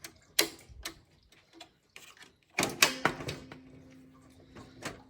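Several sharp, irregular clicks and knocks, a cluster of them about two and a half seconds in, with a faint steady low hum starting about three seconds in.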